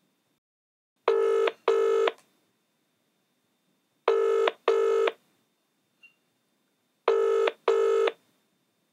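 Telephone ringing in the British double-ring pattern: three pairs of short electronic rings, each pair about three seconds apart.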